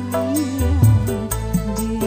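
Live amplified campursari-koplo music: a woman singing a wavering melody into a microphone over drums and bass, with a steady fast ticking beat.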